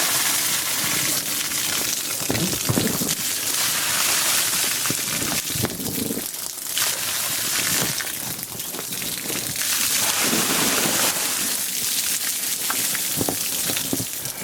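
Rainwater that has pooled on a sagging, almost flat shelter roof gushing off and splashing down in several surges as the roof is pushed up to empty it. The roof's slope of only 3–4% lets the water collect.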